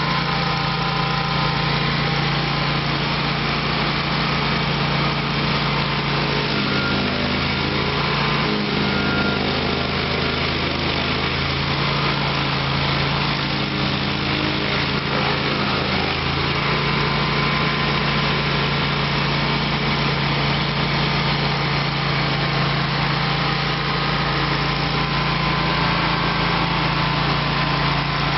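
Stump grinder's engine running steadily, its note changing for several seconds in the middle before settling back.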